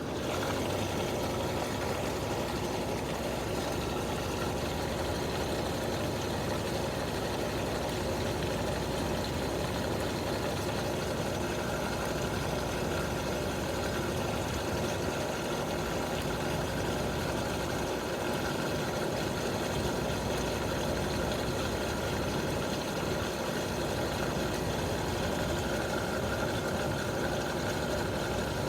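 Electrolux LQ90 washing machine in its spin cycle, running with a steady whir and hum at an even speed.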